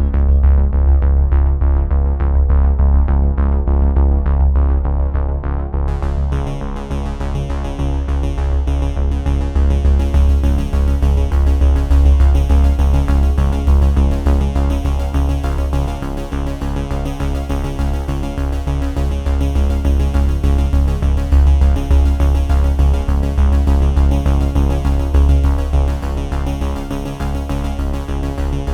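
Electronic background music with synthesizer and a steady beat; brighter, higher-pitched sounds join about six seconds in.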